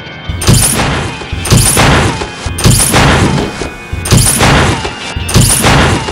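Dramatic horror film score: a steady droning tone, then, from about a third of a second in, five loud, heavy percussive hits a little over a second apart, each ringing out.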